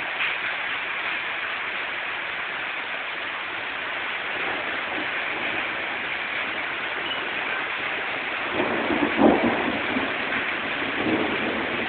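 Steady rushing noise of water during a flash flood, rain and floodwater running over a flooded street. About nine seconds in it briefly swells louder and deeper.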